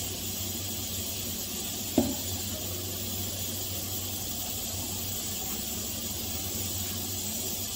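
Steady hiss of a gas stove burner heating mustard oil in a kadhai, over a low steady hum, with one sharp knock about two seconds in.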